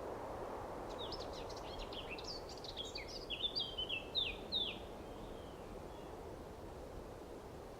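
A small bird singing one rapid, jumbled phrase of short high chirps, starting about a second in and lasting about four seconds, over steady background noise.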